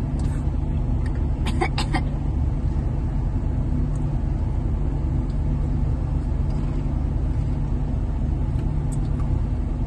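A Jeep's engine idling, heard inside the cabin as a steady low hum. A few short crunches come about one and a half to two seconds in.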